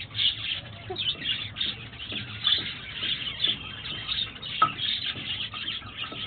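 A flock of budgerigars chattering with a constant stream of high chirps and warbles. One sharper chirp stands out a little past halfway.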